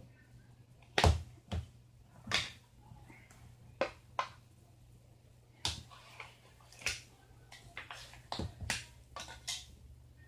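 Irregular knocks and clicks, a dozen or so, over a faint steady low hum; the loudest comes about a second in.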